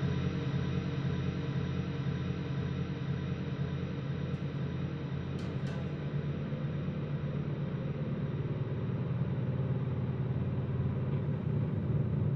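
Ambient drone music: low held tones layered into a steady rumbling drone. A few faint clicks sound about four to six seconds in.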